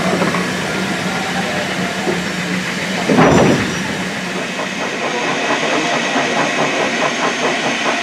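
Steam locomotives passing close alongside, with a steady hiss of steam and running noise. A loud burst of steam comes about three seconds in, and a quick, regular beating follows near the end.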